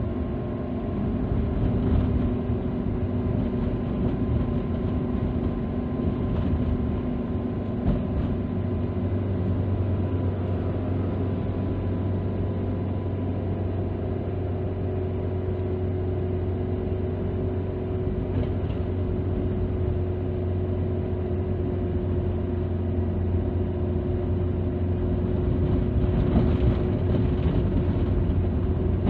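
Car engine and road noise heard from inside the cabin while driving: a steady rumble with a faint constant tone, deepening about eight seconds in.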